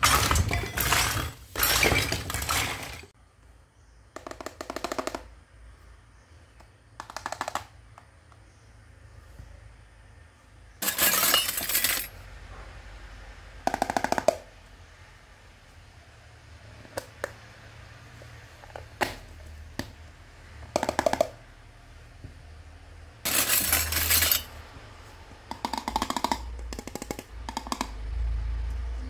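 Small plastic and metal toy kitchen pieces clattering together as they are handled, then a series of separate clicks, knocks and light clinks as a plastic toy pot, its lid and a plastic teapot are picked up, turned over and set down on a table.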